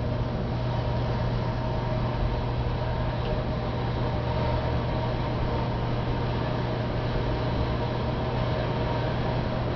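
Steady mechanical hum of nearby machinery, a constant low drone with a few fixed higher tones over even street noise. It stays the same throughout, with no distinct knocks or passes.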